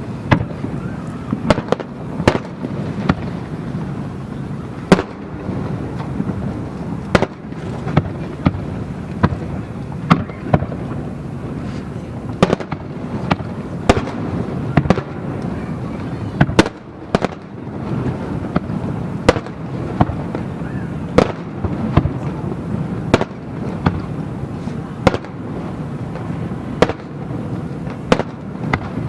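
Aerial fireworks shells bursting in quick, irregular succession, sharp bangs about every second over a continuous rumble of further bursts.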